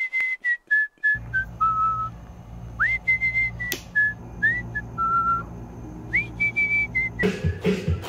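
A person whistling a slow tune in held notes, each phrase sliding up into its first note, over a low steady hum that comes in about a second in. A sharp click sounds partway through, and music starts near the end.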